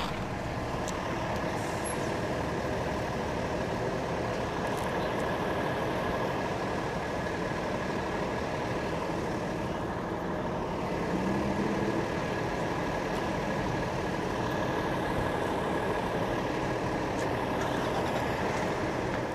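A yard of utility bucket trucks idling together, a steady engine rumble with a faint steady whine over it.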